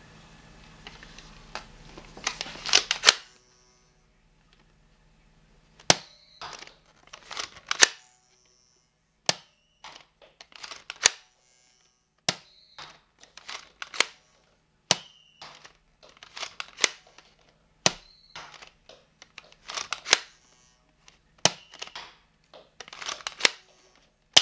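Toy dart blaster (Mega Bloks Skylanders Giants Trigger Happy) firing whistler darts over and over: a sharp plastic snap for each shot, several followed by a short whistle that drops in pitch, roughly every one to two seconds. A burst of plastic rattling comes about two seconds in, before the shots.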